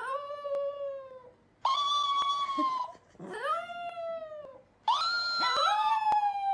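A pet animal's long, drawn-out pitched cries, four in a row, each holding its pitch and then falling off at the end.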